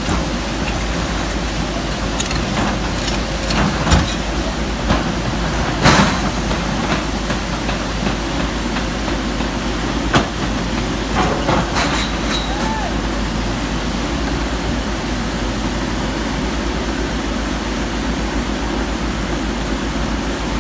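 JCB 220 LC tracked excavator working, its diesel engine running steadily, with sharp knocks and clanks every few seconds, the loudest about six seconds in.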